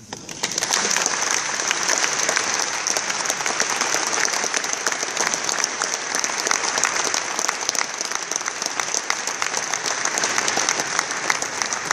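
Audience applauding, the clapping swelling within the first second and then holding steady.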